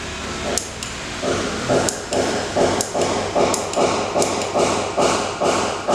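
Camping lantern worked by hand: sharp clicks, then from about a second in a rhythmic pulsing whir at about two and a half pulses a second.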